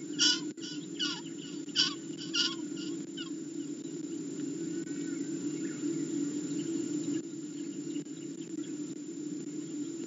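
A live prey bird screaming in distress: a quick series of short, sharp calls over the first three seconds, then only faint chirps. A steady low hum runs underneath.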